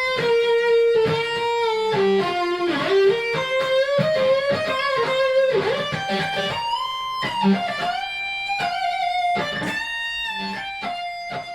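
Electric guitar playing a single-note lead melody, sustained notes that slide and bend between pitches, fading out near the end.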